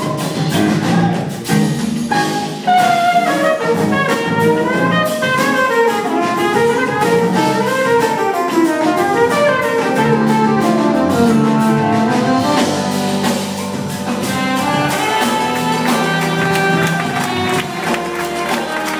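Jazz-fusion band playing live, drums, bass and keyboards under a trumpet and saxophone line, heard from the seats of a theatre.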